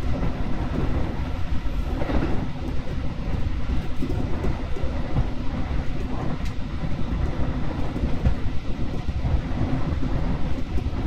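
Train running on the rails, heard from inside the car: a steady low rumble with a few faint clicks.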